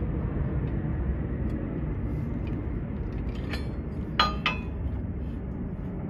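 Metal hardware clinking twice, with a short ring, about four seconds in as U-bolts and flip-kit parts are fitted on a truck's rear axle. A steady low rumble runs underneath.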